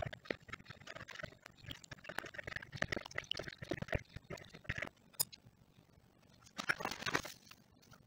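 Metal fork stirring flour in a plastic mixing bowl: quick scrapes and light taps against the bowl for about five seconds, then a pause and a short rustle about seven seconds in.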